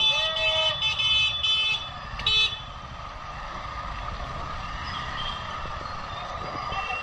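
A vehicle horn honks in a run of about four short toots over the first two seconds, with one more brief toot soon after. Under it runs the steady hum of a motorcycle riding through street traffic.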